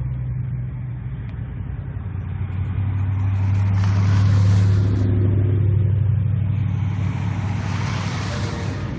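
Ford Mustangs pulling out one after another, their engines giving a deep steady exhaust rumble. The rumble swells to its loudest about halfway through, and cars pass close twice, near the middle and near the end.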